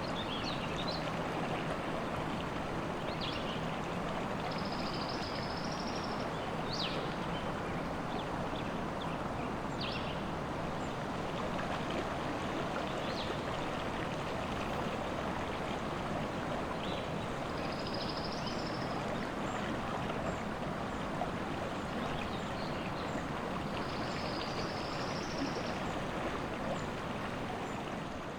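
Steady rushing of river water, with songbirds chirping at intervals over it and three longer high trills.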